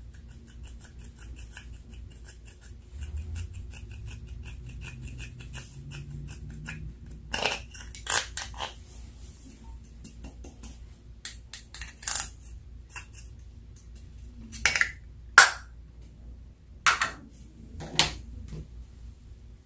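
A pointed tool scratching and crumbling pressed eyeshadow in a plastic compact, a fast run of small scratchy ticks. From about seven seconds in come a dozen or so sharp clicks and knocks as the plastic compact is tapped against a glass baking dish to shake the powder out.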